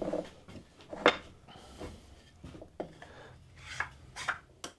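Oak mallet head and handle knocking and rubbing against each other and the workbench as the handle is slid through the head's mortise: a handful of light wooden knocks, the sharpest about a second in and a few more near the end, with scraping of wood on wood between.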